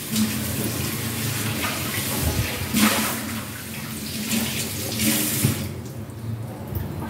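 Tamarind kuzhambu heating in a pot on a gas burner, a steady hissing and bubbling as it comes up to the boil. It swells louder for a moment about three seconds in and again about five seconds in.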